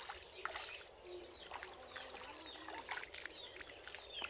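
Faint splashing and squelching of shallow muddy water as hands work through the mud, a scatter of small, irregular sloshes.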